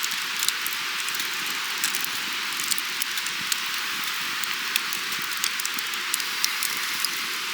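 Steady rushing water noise, such as a stream or rain, with scattered sharp ticks and crackles over it.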